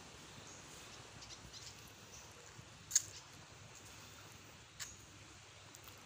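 Quiet outdoor background with faint, short high chirps scattered through it and two sharp clicks, the louder about three seconds in and a softer one nearly two seconds later.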